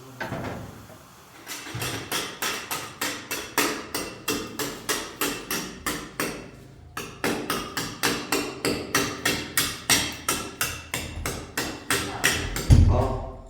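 Hammering: a quick, even run of blows, about three to four a second, with a short pause midway, ending in one heavy low thump.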